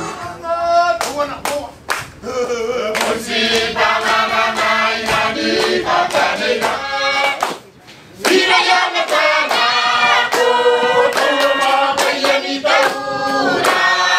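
A group of women and men singing together in a choir, with sharp hand claps keeping time. The singing breaks off briefly about halfway, then starts again.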